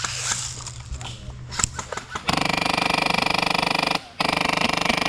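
Airsoft electric gun firing on full auto: a rapid, even buzzing rattle that starts suddenly about two seconds in, breaks off for a moment near four seconds, then fires again.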